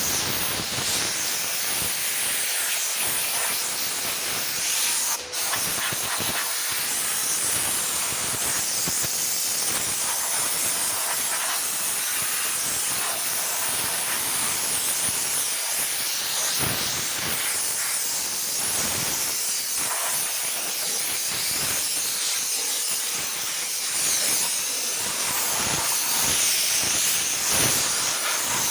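Steady hissing of a power sander working the repaired rear fender, smoothing it ahead of paint, with a brief drop about five seconds in.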